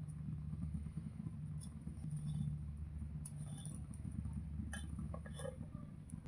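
A few faint, light clinks and scrapes of a serving spoon against a dish as the cooked khichdi is served, over a steady low hum.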